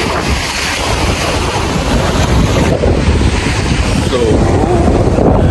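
Wind buffeting the microphone in a steady low rumble, over the hiss of small waves washing onto a sandy beach.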